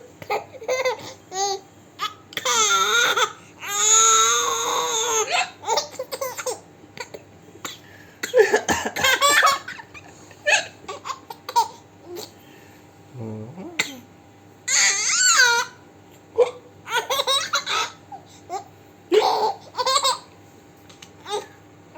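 A young girl laughing over and over. There are several long, high-pitched laughs and shorter giggles and babbles between them.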